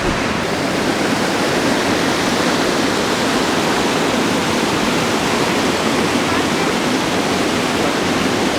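Fast-flowing mountain water rushing steadily and loudly, a constant noise of a waterfall-fed torrent.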